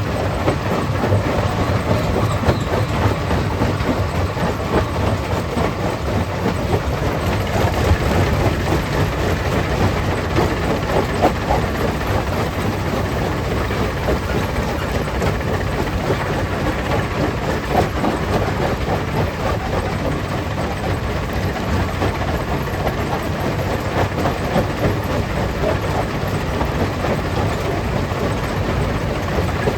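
Stone crusher plant running: a steady, loud machine din with dense, irregular clattering of rock.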